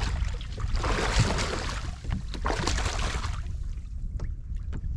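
Wind rumbling on the microphone, with footsteps crunching on loose gravel for a couple of seconds, then a few scattered clicks near the end.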